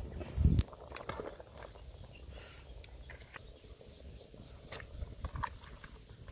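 Kitchen handling noises at an open-fire cooking pot: a dull thump about half a second in, then scattered light clicks and rustles as sliced banana flower is handled in a plastic bowl and dropped into the boiling pot.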